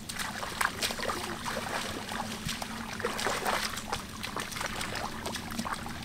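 Legs wading through shallow stream water, making irregular sloshing splashes with each step.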